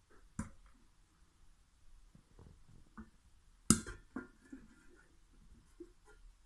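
The last kernels of popcorn popping inside a covered stainless steel pan: a few scattered, sharp pops a second or so apart, one louder about halfway through, as the popping dies down.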